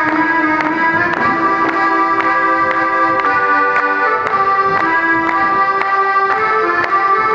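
Accordion playing a folk dance tune: a melody of held notes over a steady beat of about three strokes a second.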